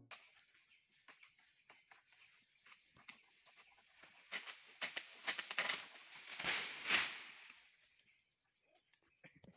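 A steady high insect drone from crickets or cicadas, with a cluster of rustling and scraping noises in the middle, loudest about seven seconds in, as a long-handled pole sickle (egrek) cuts and pulls at an oil palm's fronds.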